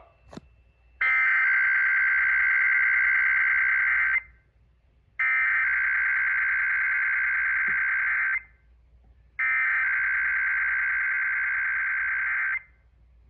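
Emergency Alert System SAME header: three bursts of raspy digital data tones, each about three seconds long with about a second between them, marking the start of a broadcast Required Weekly Test. A brief click comes just before the first burst.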